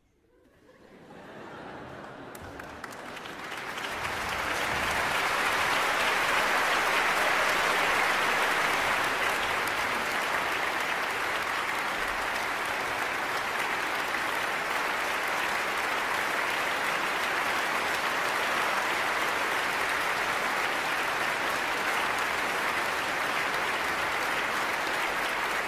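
Large concert-hall audience applauding: the clapping swells from nothing over the first four or five seconds into a dense, steady applause that holds.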